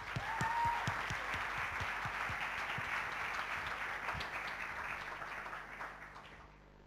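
Audience applause, a steady clatter of many hands clapping that dies away near the end. A brief rising tone sounds near the start.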